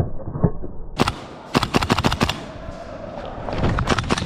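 Airsoft guns firing in rapid bursts of sharp cracks, starting about a second in, with a second burst near the end.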